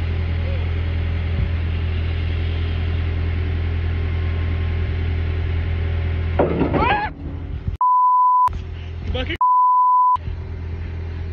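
Excavator engine running with a steady low hum, then a voice exclaiming, and two censor beeps, each under a second long, blanking out the words about eight and nine and a half seconds in.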